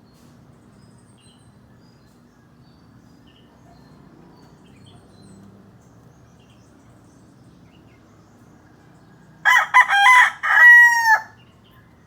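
A rooster crowing once, about nine and a half seconds in: a broken, choppy opening followed by a long held final note, under two seconds in all, over a faint low background.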